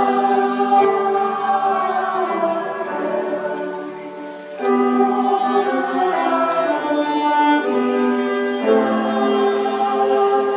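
Mixed school choir singing, holding sustained chords phrase by phrase. The sound dies down briefly about four seconds in, then the next phrase starts.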